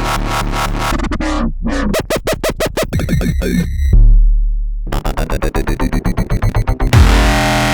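Electronic dubstep-style beat on synthesizer and drum machine, with fast stuttering chopped notes and a deep sustained bass note about four seconds in.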